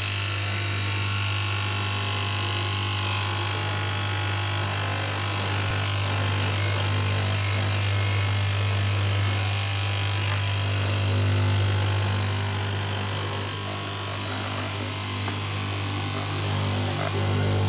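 Electric straight knife cloth cutting machine running steadily, its motor humming with a low, even drone while the reciprocating vertical blade cuts through a thick stack of fabric plies.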